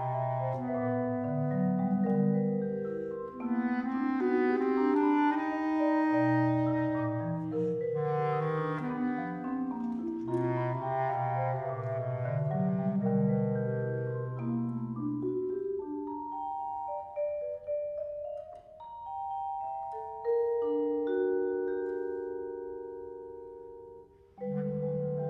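Live trio of bass clarinet, marimba and vibraphone playing a contemporary chamber piece: held bass clarinet notes under busy mallet lines. About two-thirds of the way through the low notes drop away, leaving sustained chords that ring and fade before the full group comes back in sharply near the end.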